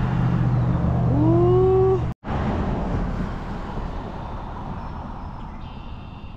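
Road traffic: a vehicle's engine hum with a short rising whine, then a steady rush of traffic noise that slowly fades.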